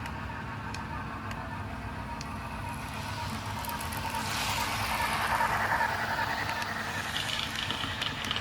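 Athearn remote-control model train locomotive running around the track, its motor and wheels a steady whir that grows louder as it passes close about four seconds in, then eases off again.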